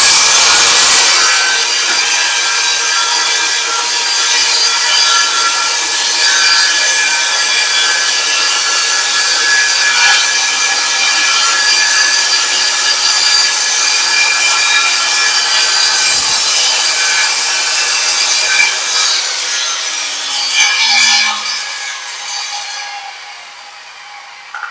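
Circular saw on a shop-made Masonite track cutting through wood with a steady whine. About 19 seconds in the cut ends and the motor winds down, its pitch falling as the sound fades away.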